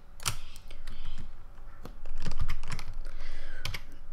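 Computer keyboard keys pressed in a run of sharp, irregular clicks.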